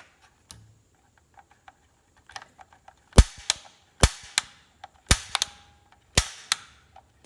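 Bradford White Defender water heater's pilot ignite button being pressed to spark the pilot: sharp snaps about once a second, five times, each followed by a lighter click.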